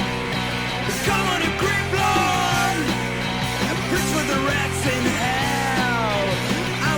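Rock music played by a full band, with pitched notes sliding up and down over sustained low notes.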